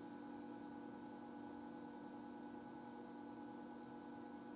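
Faint, steady electrical hum made of several fixed tones, the lowest of them the strongest.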